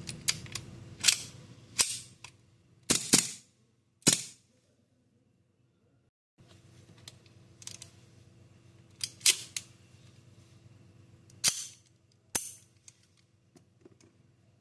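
CO2-powered airsoft BB gun firing single shots: about a dozen sharp, snappy reports at irregular intervals, some close together in pairs. There is a short dropout about six seconds in.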